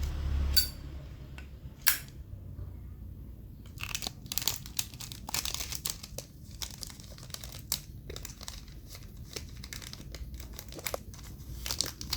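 Close handling noise: two sharp clicks in the first two seconds, then a run of irregular crinkling rustles and small clicks, as of plastic wrapping and a metal lighter being handled.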